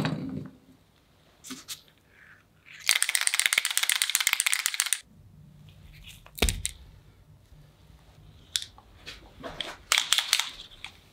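Small metal parts clicking and tapping during hand work, with a rapid, even rattle lasting about two seconds, beginning about three seconds in.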